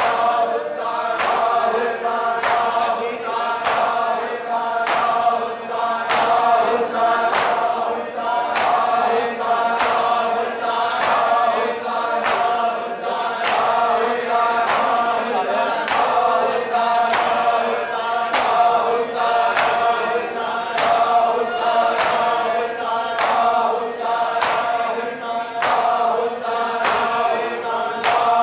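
Men chanting a Shia mourning lament (noha) together, with the sharp slaps of many palms striking bare chests (matam) in a steady rhythm about once to one and a half times a second.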